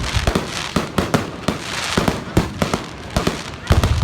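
Fireworks and firecrackers going off: a rapid, irregular string of sharp bangs, several a second, with crackling between them. A deeper rumble comes in near the end.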